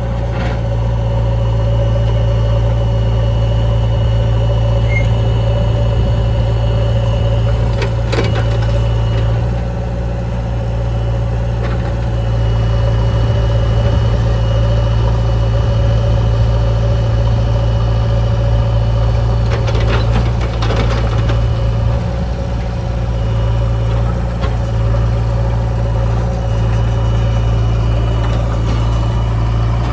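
Heavy diesel machinery engine running steadily at a constant speed while a backhoe loader loads mud, with a few short clatters partway through.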